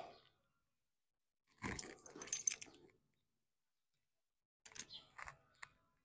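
Metal clinking and jingling of a horse's halter rings and lead-rope fittings as its head is moved during a poll stretch. It comes in two short spells, a longer one about a second and a half in and a sparser run of clicks near the end.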